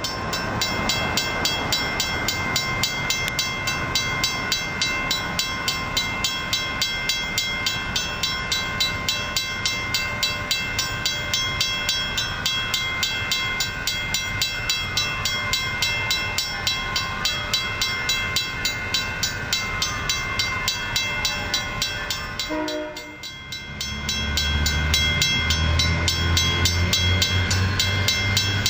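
Railroad crossing warning bells ringing steadily, about two strokes a second. In the last few seconds the deep rumble of an arriving train rises under the bells.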